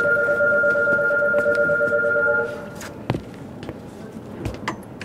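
Electronic buzzer holding a steady, slightly pulsing tone for about three seconds, then cutting off; a few sharp knocks follow.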